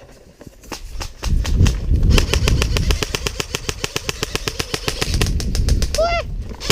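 Airsoft gun firing a long full-auto burst of rapid, evenly spaced shots for about four seconds, over a low rumble of movement.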